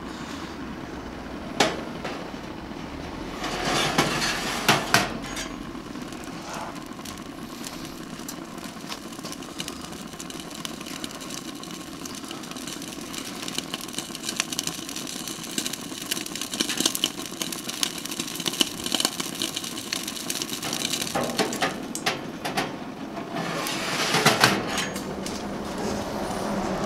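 Infrared gas burner of a Tepro Toronto top-heat steak grill hissing steadily while a steak sizzles and crackles under it. A few sharp metal clanks in the first five seconds as the steak on its grate is pushed in.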